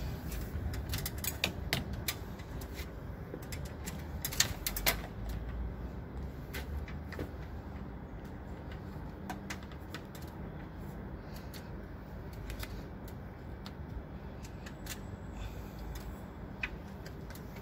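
Irregular light knocks and clicks of a PVC pipe and a hacksaw being handled and positioned, thickest in the first few seconds, over a steady low rumble.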